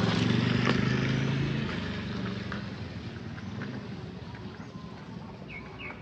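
A passing motor vehicle's engine, loudest at the start and fading away over about three seconds.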